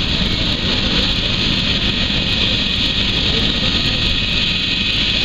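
Helicopter running loud and steady: a high turbine whine over the choppy beat of the rotor.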